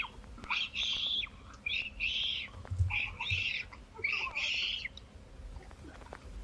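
Harsh, raspy animal calls: four screeching calls about a second apart, each broken into two hoarse parts.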